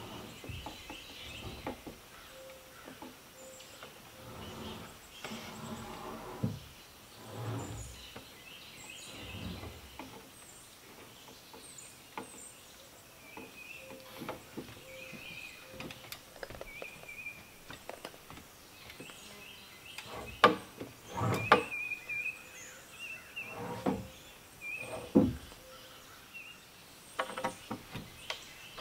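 Birds chirping in the surrounding forest, with occasional knocks, scrapes and shuffles of a log rafter and ladder being worked by hand; a few sharper, louder knocks come in the last third.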